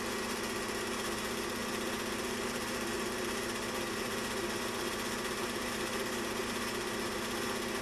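Film projector running: a steady mechanical whir with a fast, even clatter underneath.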